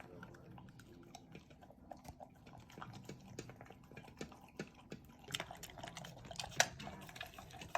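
A dog chewing and smacking on small chopped-up pieces of cheeseburger, a run of small wet clicks that gets louder and busier about five seconds in.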